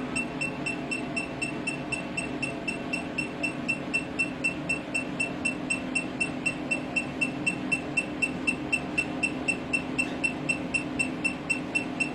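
Copper laser treatment machine giving a rapid, even run of short high beeps, about three to four a second, as it fires its pulses, over the steady low hum of the unit.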